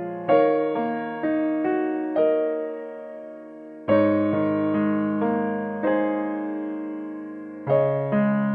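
Background music: slow electric piano chords, each struck and left to fade, a new chord every couple of seconds.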